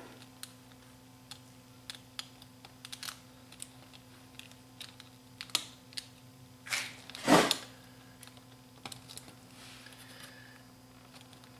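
Scattered small clicks and taps of a wiring connector being fitted together inside the metal chassis of a Sony EV-C3 8mm VCR, with one louder knock about seven seconds in.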